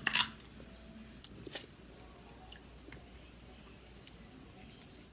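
Close-up eating of crab in a seafood boil: two short, sharp crackles, one right at the start and one about a second and a half in, then a few faint wet clicks of chewing.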